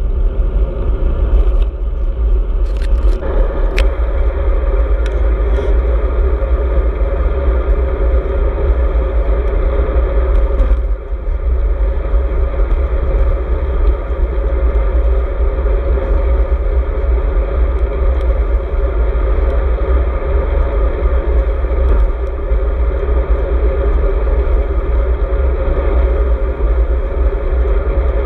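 Wind rumbling over an action camera's microphone on a moving road bike, with tyre and road noise underneath: a loud, steady low rumble. A few sharp clicks come in the first few seconds.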